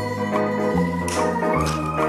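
Instrumental background music: held organ-like keyboard chords over a bass line that steps to a new note about every three-quarters of a second.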